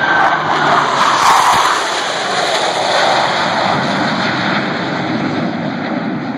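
Jet noise from a formation of six Blue Angels F/A-18 Hornets flying past, a loud steady rush that is strongest about a second in and eases slowly.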